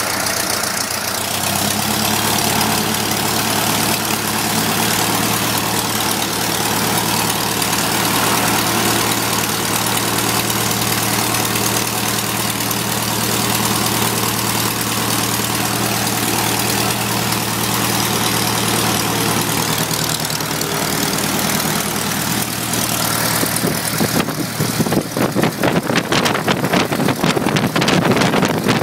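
Lycoming O-290 four-cylinder air-cooled aero engine of a Stolp SA900 V-Star biplane, running steadily on a ground run. Near the end the sound turns rough and pulsing, with the level swinging rapidly.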